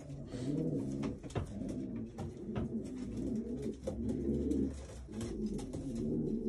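Several racing pigeons cooing in a loft, their low coos overlapping in repeated phrases, with a few sharp clicks among them.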